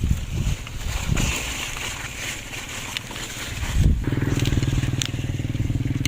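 A few dull thumps and rustling, then about four seconds in a small engine starts and runs steadily with a fast, even chug.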